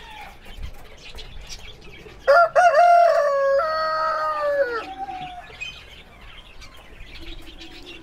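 A rooster crows once, a long call starting about two seconds in and lasting some two and a half seconds, dropping in pitch at its end. Faint chirps of smaller birds sound around it.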